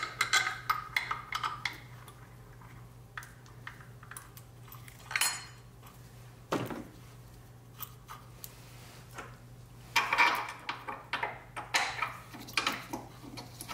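Metal hand tools, sockets and bolts clinking and clattering while an engine mount is unbolted and lifted out of a car's engine bay. The clinks come in clusters near the start, about five seconds in, and again near the end, over a faint steady low hum.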